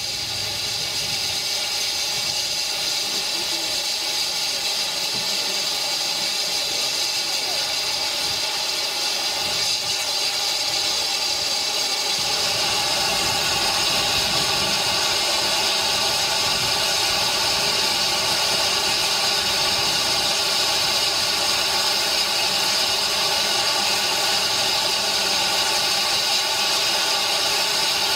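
Steady hiss of steam escaping from a standing narrow-gauge steam locomotive, growing a little louder about a third of the way in.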